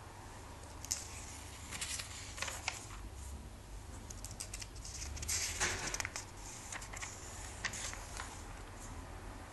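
Comic book pages being turned by hand: paper rustling with a series of short crisp flicks and taps, the longest rustle just past halfway.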